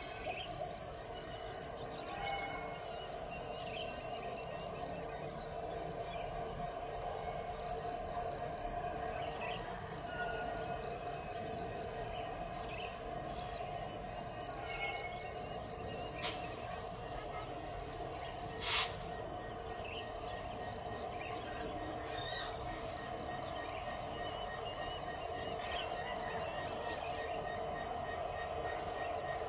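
Steady chorus of insects, evenly pulsing and high-pitched, over a faint steady hum, with a few small bird chirps and one brief click about two-thirds of the way through.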